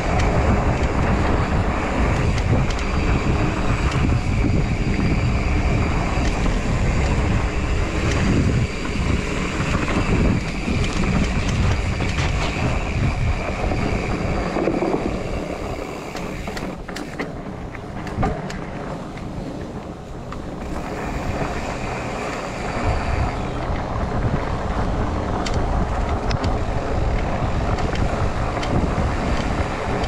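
Wind buffeting the microphone on a mountain bike descending a dirt trail, mixed with the rumble of knobby tyres on dirt and the bike's rattles and knocks over rocks and roots. It eases off for a few seconds just past the middle, with one sharp knock, then picks back up.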